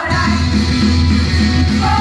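Loud rock music from an idol group's live song. The full band comes back in right at the start after a brief drop, and female voices come in singing near the end.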